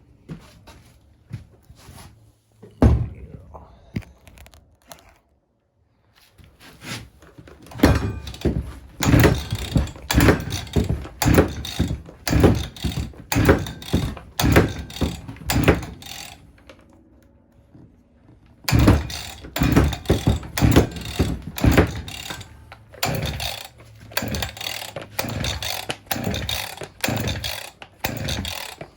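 Husqvarna 346XP two-stroke chainsaw's recoil starter pulled over and over with the choke out, in two long runs with a short pause between; the engine does not catch. A cold start after months unused, with the engine starting to flood.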